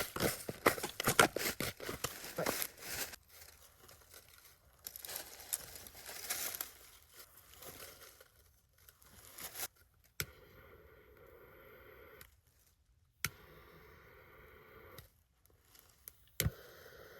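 Footsteps crunching and rustling through dry leaf litter and brush, loudest for the first few seconds and then softer. In the second half there is a quieter steady background, broken by three sharp clicks.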